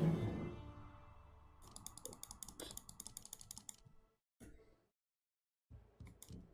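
Online slot game clicking: a fast run of short, sharp clicks as the bet is stepped up, after a low sound fading out at the start. After a short near-silent pause, a few more clicks and short sounds come near the end as the reels start spinning.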